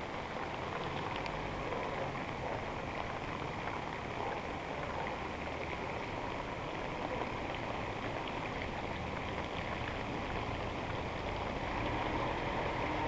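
Steady hiss of rain and of tyres rolling over a wet, flooded street, with a low rumble underneath.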